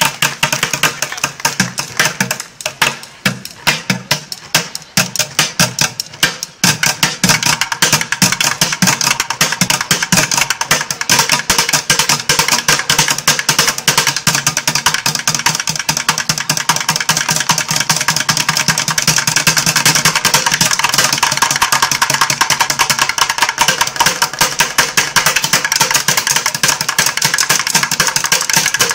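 Bucket drumming: two drummers beating plastic buckets with drumsticks in a fast beat. The strikes are more spaced for the first several seconds, then from about seven seconds in they run together into a dense, continuous rapid roll.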